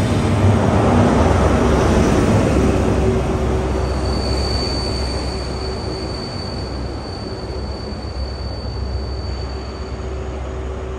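Class 43 HST diesel power car and test-train coaches running through a station and drawing away, loudest in the first few seconds and then fading. A thin high-pitched squeal sets in about four seconds in and stops near the end.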